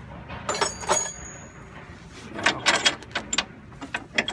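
Loose steel spring compressor parts clanking and rattling against a car's front coil spring as they are worked free: two sharp metal knocks about half a second and a second in, one ringing briefly, then a run of quicker clicks and rattles.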